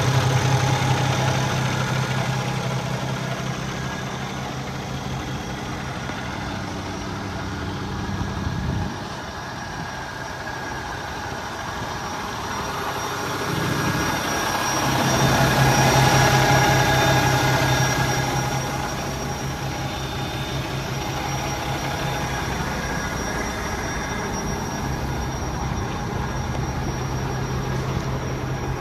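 Freightliner Cascadia semi truck's diesel engine idling with a steady low hum. A broader rushing noise swells up and fades away in the middle.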